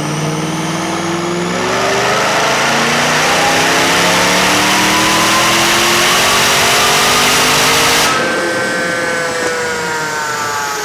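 Supercharged Pontiac GTO V8 making a wide-open-throttle pull on a chassis dyno, its pitch climbing steadily for about eight seconds. The throttle then closes abruptly and the engine winds down with a falling whine.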